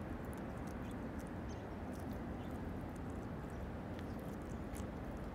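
Red-tailed hawk tearing at a raw chicken breast with its hooked beak: faint, scattered wet clicks and tears of flesh over a steady low background rumble.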